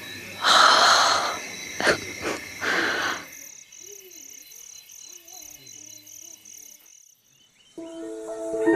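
Night insects chirping, a regular high pulse about three or four times a second, after several loud breathy bursts of noise in the first three seconds. Music comes in near the end.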